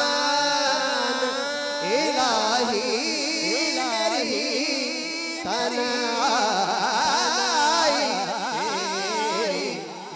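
Male voice singing a naat, unaccompanied, in long drawn-out ornamented phrases with a wavering vibrato, over a steady held low tone, amplified through a microphone. It fades down near the end.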